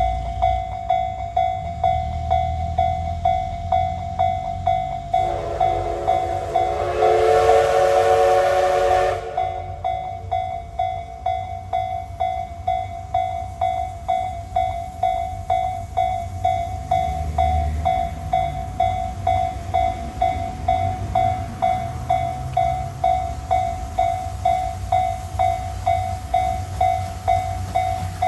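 Japanese level-crossing alarm bell ringing with a steady, regular clang, over the low rumble of a passing train. About five seconds in, a train sounds its horn for about four seconds.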